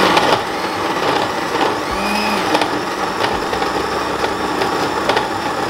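Electric countertop blender running steadily at full speed, loud, grinding coconut pieces with water into a thick paste.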